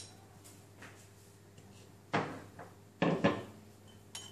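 Metal spoon scraping and knocking against a granite mortar while pounded chili is spooned out. There is a click at the start, heavier stone knocks about two and three seconds in, and a small click near the end.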